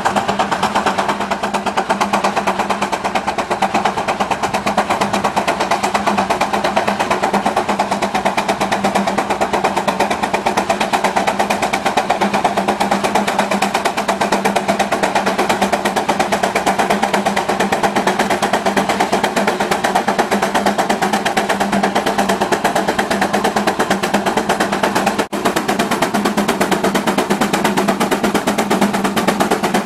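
Advance steam traction engine working under load, pulling a plow, its exhaust and running gear making a rapid, even beat.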